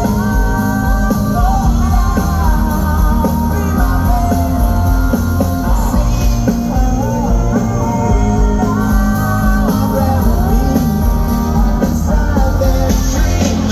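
Live rock band playing at full volume: a male lead singer sings the melody over drums, bass and guitar.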